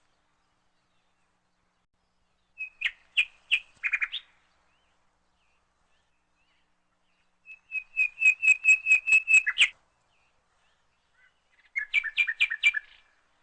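Bird chirping in three short, rapid trilled phrases, each about one to two seconds long, with silence between them.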